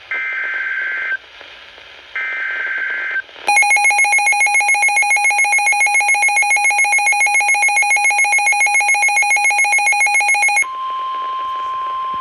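Weather radio Emergency Alert System sequence. It opens with two short bursts of SAME header data, a shrill two-tone screech about a second each. Then comes a loud, harsh alarm beeping rapidly, about seven pulses a second for some seven seconds, and then the steady single-pitch NOAA warning alarm tone begins near the end.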